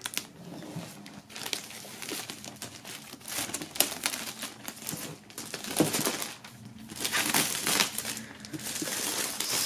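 Clear plastic shrink-wrap film being pulled off a large cardboard box set, crinkling and crackling irregularly in louder and quieter surges.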